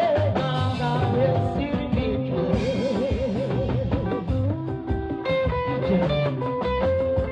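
Singing over a band with guitar and drums. A long held note with a wide vibrato sits in the middle.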